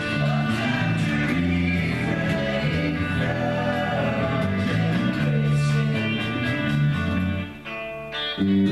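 Folk-rock song with singing over electric guitar, bass and drums. Near the end the music briefly drops away before the guitar comes back in.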